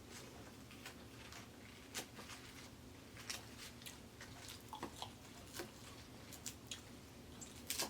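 A person chewing salad, with scattered soft crunches and clicks, a few to several a second.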